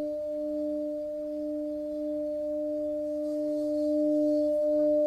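Singing bowl sounding one sustained, steady note, a low tone with its octave ringing above it, swelling slowly louder.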